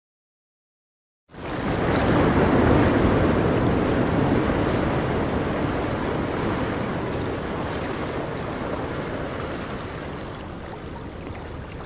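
Ocean surf: a steady rush of waves that starts suddenly after about a second of silence, swells briefly and then slowly fades.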